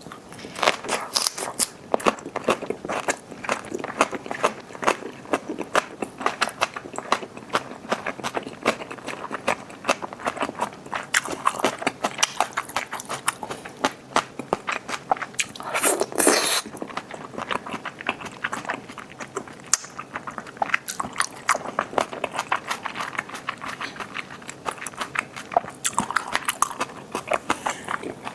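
Close-miked mukbang eating of boiled pork bossam with crunchy fresh kimchi and raw oysters: rapid crunchy biting and chewing clicks. There is a longer, noisier chewing sound about halfway through.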